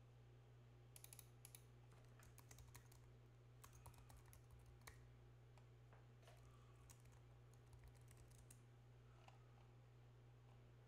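Faint computer keyboard typing: several short runs of keystrokes between about one and eight and a half seconds in, over a steady low hum.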